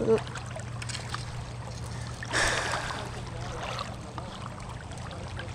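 Water swishing as someone wades through a shallow river, with a louder splash about two and a half seconds in.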